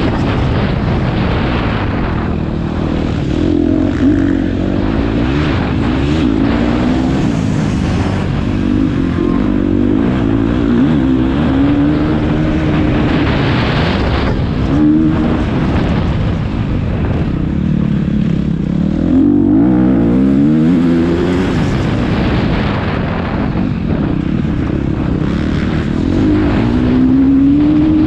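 Motocross bike engines on a track, revving up in repeated rising sweeps and dropping off again, sometimes several at once, over a steady rumbling din.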